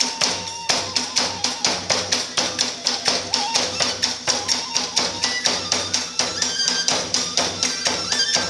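Iwami kagura festival music: drums and small hand cymbals beating a fast, steady rhythm of about four to five strokes a second, with a thin melodic line held and shifting above the beat.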